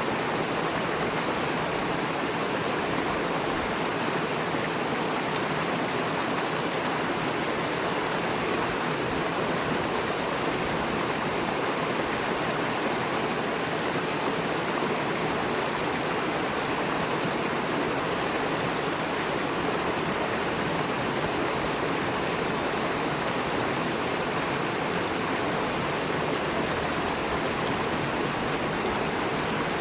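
A fast-flowing river rushing and splashing over rocks, a steady, unbroken wash of water noise.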